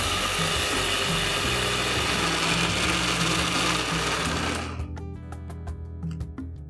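Electric mixer grinder with a steel jar running at speed, wet-grinding soaked split black gram and rice into dosa batter; it stops about four and a half seconds in.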